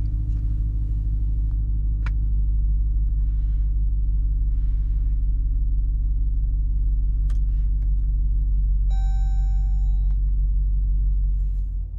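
Steady low rumble of the Durango RT's 5.7-litre HEMI V8 idling, heard inside the cabin, with a couple of faint clicks and, about nine seconds in, a single electronic beep lasting about a second.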